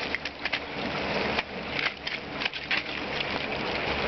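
Steady hiss of rain falling, with scattered short, sharp clicks and taps.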